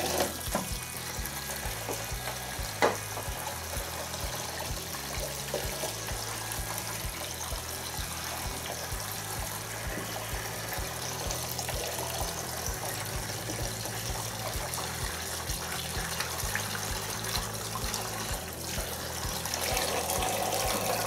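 Hot water running steadily from a tap into a removed washing-machine detergent drawer at a sink, with a single sharp click about three seconds in.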